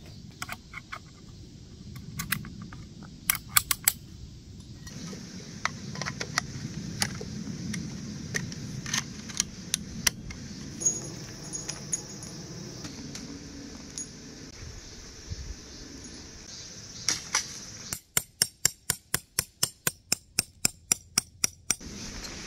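Metal camping gear clinking and jangling as it is handled, with scattered sharp clicks. Near the end comes a quick, even run of sharp clicks, about four or five a second, for a few seconds.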